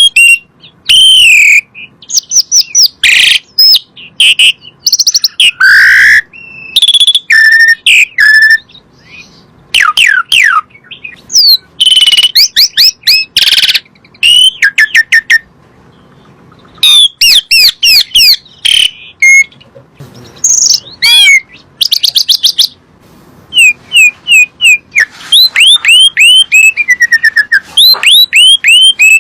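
Asian pied starling (jalak suren) singing: a loud, varied series of whistled phrases and chattering notes, sliding up and down in pitch, in bursts with short pauses, ending in a quick run of falling whistles.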